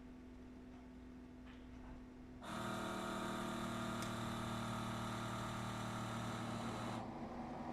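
Coffee machine switching on about two and a half seconds in and running with a loud, steady mechanical hum and hiss. Near the end the hiss drops away while a lower hum carries on.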